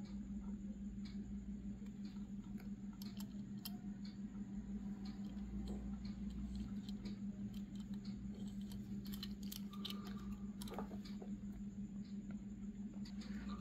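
Faint scattered clicks and taps of fingers handling a small diecast toy car, over a steady low hum.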